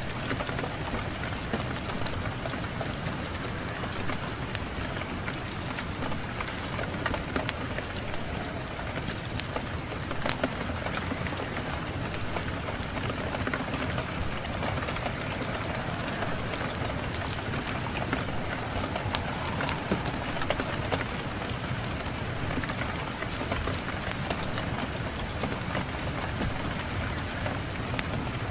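Fireplace fire crackling, with scattered sharp pops and snaps over a steady wind.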